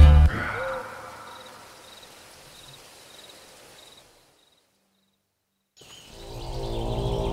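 A soundtrack music cue cuts off, leaving faint outdoor ambience with crickets chirping in a steady pattern. After a second or two of dead silence, a low sustained music drone fades in near the end.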